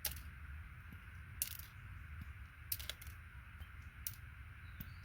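Gold-plated connector pins being tipped out of a plastic connector, landing with a handful of sharp little clicks at irregular intervals, roughly one a second.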